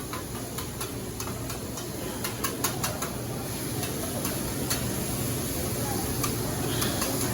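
Food frying on a flat-top griddle, with a steady sizzle and repeated sharp metallic clicks and scrapes of a spatula. It grows a little louder toward the end.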